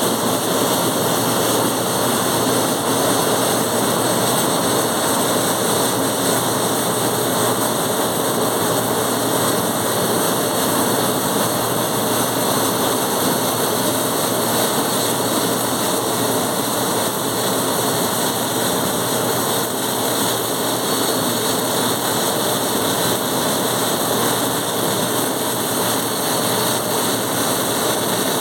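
Welding arc running without a break, a loud, even hiss.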